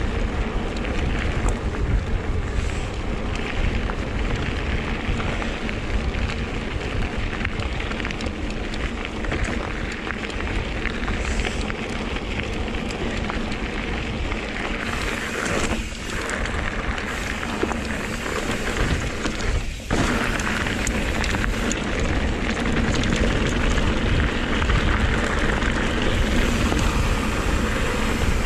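Wind rushing over the microphone of a camera carried on a fast downhill ride: a steady loud noisy roar with a deep rumble underneath. It dips briefly twice past the middle.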